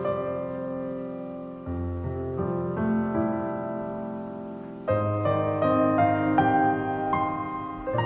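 Background piano music, with new chords struck about two seconds and five seconds in.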